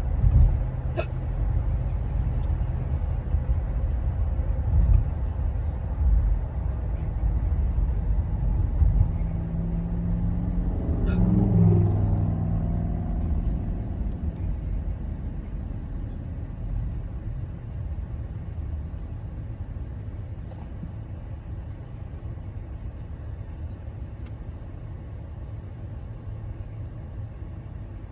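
A person hiccuping a few times over a steady low rumble; the clearest hiccup comes about a third of the way through with a short voiced catch. The rumble slowly fades in the second half.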